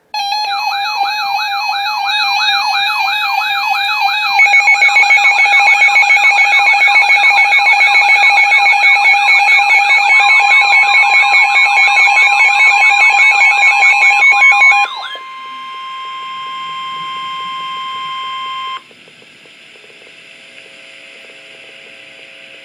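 Emergency alert tones for a tornado warning: several electronic warbling siren tones layered over a steady alarm tone, joined about four seconds in by a fast two-note beeping and about ten seconds in by another steady tone. About fifteen seconds in the warbling stops and one steady tone goes on until it cuts off suddenly, leaving fainter steady tones.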